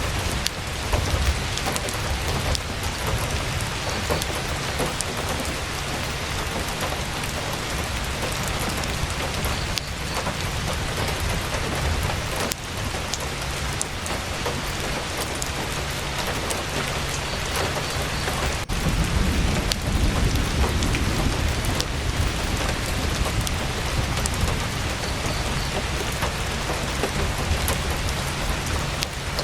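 Heavy rain drumming steadily on a tent's canvas, with scattered sharp ticks. A low rumble swells about two-thirds of the way through.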